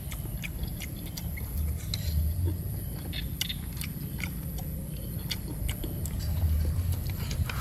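A person eating soup: chewing with short, sharp mouth and spoon clicks scattered throughout, over a low steady rumble.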